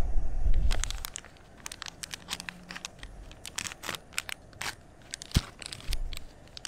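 A coffee-bag sachet being torn open and crinkled: a run of short, sharp crackles. A low rumble in the first second is louder than the crackles.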